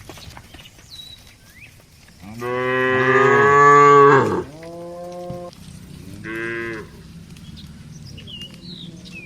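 Cattle mooing: a long, loud moo from about two seconds in, with two voices overlapping, then a lower, shorter moo straight after and a brief third moo about a second later.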